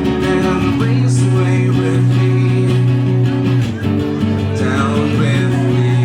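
Live acoustic guitar music with singing, the strummed guitar holding a steady low bass note.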